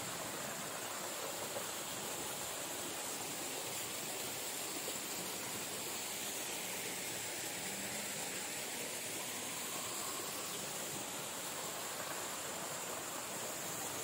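Small waterfalls pouring into a rock pool: a steady rush of falling water.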